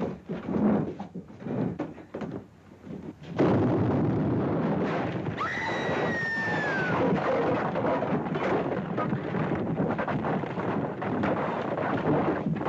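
A small bomb set with a timer in a stone jail wall explodes suddenly about three seconds in, followed by a long rumble of falling stone and debris. Partway through, a high cry rises and then falls.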